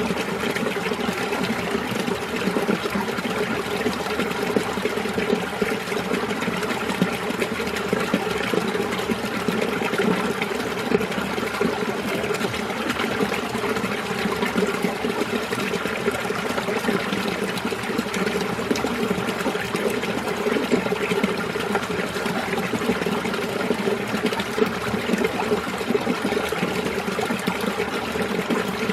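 Mountain stream water running and splashing over rocks in winter, a steady, even babble.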